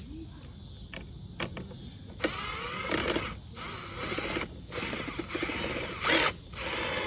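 A tool working at the fasteners of an old lawn mower's top cover. A couple of faint clicks come first, then from about two seconds in there are several bouts of quick mechanical ratcheting with short gaps between them.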